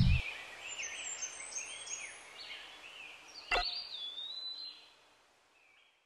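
Small birds chirping and twittering in the background, fading out about five seconds in. A deep drone cuts off right at the start, and a single sharp click comes about three and a half seconds in.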